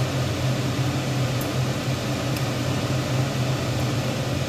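Steady low mechanical hum of a fan or kitchen appliance running, with a few faint light clicks.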